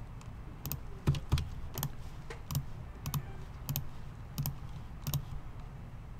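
Computer mouse and keyboard clicks, about ten sharp clicks spaced half a second to a second apart, as text is copied and pasted between browser tabs, over a low steady hum.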